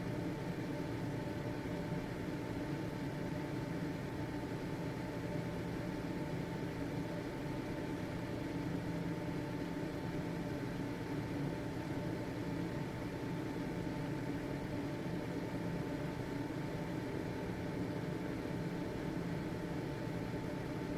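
Household ventilation fan running steadily: an even motor hum with a thin, constant whine above it and a soft rush of air.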